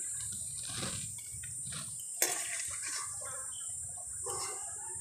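Fried fritters sizzling in hot oil in a metal kadai as a slotted metal spoon lifts them out, with a sharp clink of the spoon against the pan about two seconds in. A steady high hiss runs underneath.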